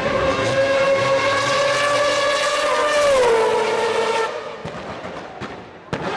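Historic Formula 1 car engine at high revs, holding a high, steady note that drops in pitch about three seconds in as the car passes. The sound cuts off abruptly after about four seconds, and a sharp knock comes near the end.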